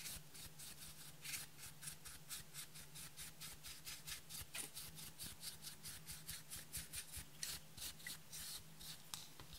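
Makeup brush scratching at pressed eyeshadow in its palette and sweeping the crumbled powder over a clear tray: a steady run of quick scratchy strokes, about four a second.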